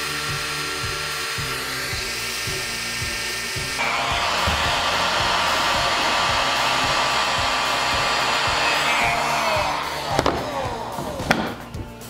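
Older electric heat gun blowing hot air steadily onto glue-lined heat-shrink tubing over a crimped battery cable terminal. It grows louder about four seconds in and stops a little after nine seconds. A few knocks follow as it is set down on the bench.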